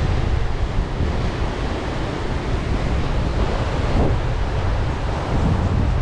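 Ocean surf breaking on the beach, with wind buffeting the microphone in a steady low rumble.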